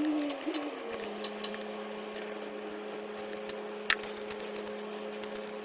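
A machine's steady hum: its pitch shifts in the first second, then holds level, with light scattered clicks and one sharp click about four seconds in.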